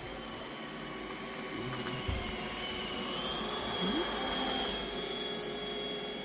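Robot vacuum cleaner running with a steady whir and a thin high whine that rises slightly in pitch about three seconds in, then holds. A soft bump comes about two seconds in.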